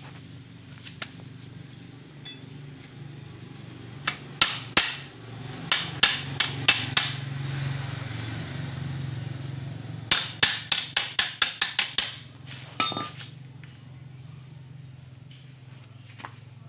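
Hammer tapping a metal tip onto a motorcycle exhaust pipe outlet: clusters of sharp metallic strikes, with a quick run of about eight blows a little past the middle, over a steady low hum.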